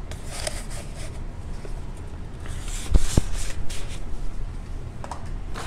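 Cardboard and paper packaging rustling and scraping as it is handled, with two dull knocks close together about three seconds in.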